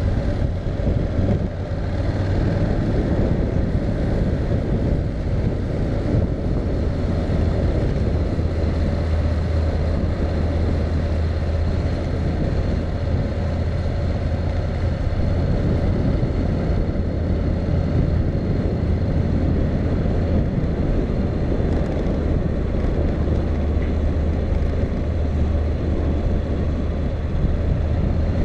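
Honda Integra's parallel-twin engine running steadily while riding through town, a constant low drone that grows a little stronger about eight seconds in, with wind noise over the microphone.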